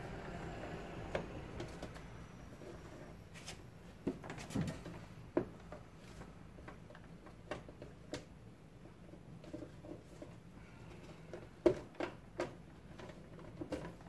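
Scattered clicks, knocks and rubbing as insulated electrical wires are pushed by hand through a knocked-out punch-out hole into an electrical panel. The sharpest knock comes late on.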